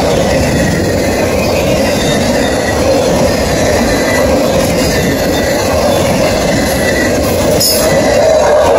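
Freight train of autorack cars rolling past close by: a steady rumble and rush of steel wheels on rail, with a faint high wheel squeal now and then.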